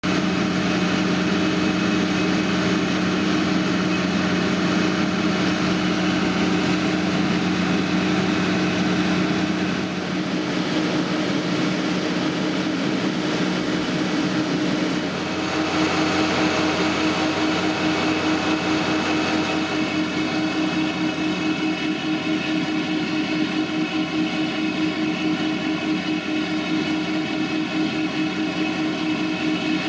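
Tractor diesel engine running at steady, constant revs while powering a slurry pump, a continuous drone whose pitch never rises or falls. About halfway through, the higher tones in the drone change.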